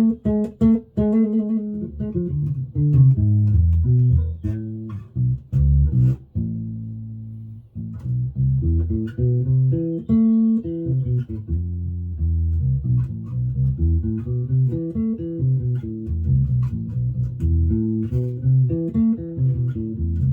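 Hammer mini five-string electric bass with Hammer pickups and preamp, played through a small Warwick BC10 bass amp: a run of plucked notes, with one longer note left to fade out around the middle.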